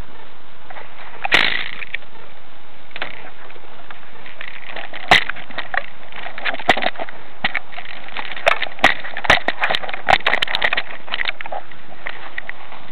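Steady hiss with scattered sharp clicks and knocks: one a second or so in, another about five seconds in, then a quick irregular run of them through the second half.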